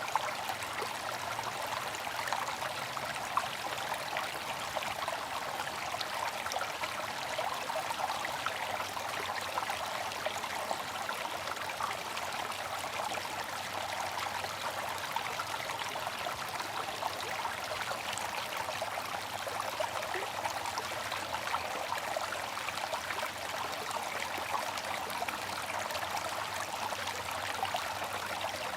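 Bamboo water fountain: a steady trickle of falling water with many small splashes, even and unbroken.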